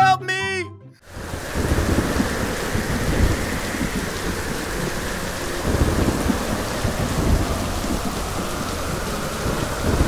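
Rain-and-thunder sound effect: steady heavy rain with rolling rumbles of thunder, setting in about a second in after a brief pitched, gliding jingle.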